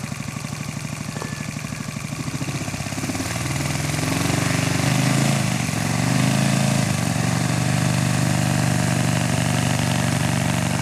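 Enya 240 V-twin four-stroke model aircraft engine idling with a slow, even beat, then throttled up over about two seconds and running at a higher speed that wavers briefly before settling.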